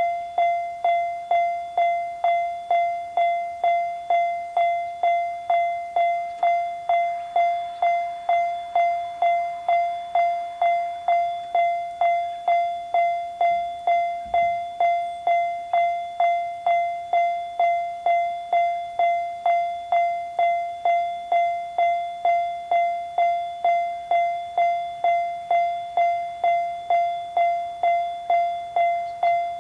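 Japanese level crossing warning bell ringing its steady "kan-kan" alarm, an even ringing tone struck about twice a second.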